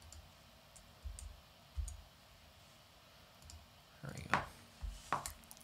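Quiet, scattered clicks and soft low thumps, with a cluster of sharper clicks about four to five seconds in.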